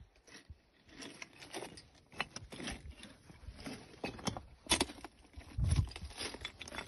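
Footsteps crunching and scraping over loose desert rock in uneven, irregular steps, with a few heavier knocks near the middle.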